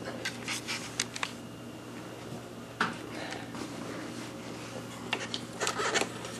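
Quiet room tone: a steady low hum with a few soft clicks and rustles of the hand-held camera being moved.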